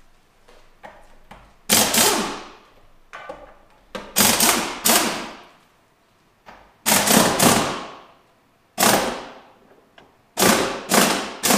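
Impact wrench firing in short bursts of rapid hammering on the Jeep Wrangler JL's spare-tire lug nuts, about half a dozen bursts with pauses between, loosening the nuts to take the spare off. Each burst echoes in the closed garage.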